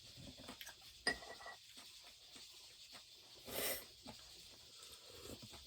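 Quiet table sounds during a meal: a light clink of a spoon on a dish about a second in, with a short ring, small scattered clicks of utensils and chewing, and a brief rushing noise a little past the middle.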